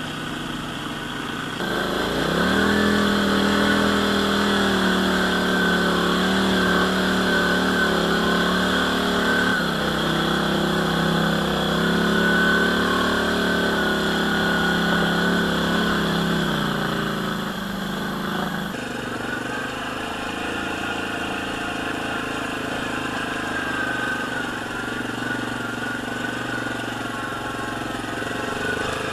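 ATV engine under way: it speeds up about two seconds in, holds a steady pitch, then eases off to a lower, steady note a little past halfway.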